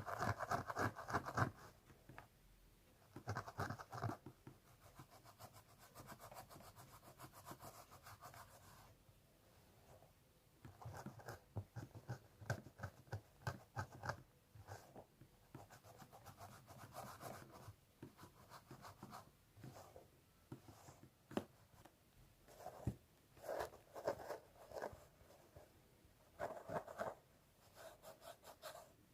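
Fingernails scratching through hair on a scalp in bursts of quick, rapid strokes lasting a few seconds each, with short pauses between.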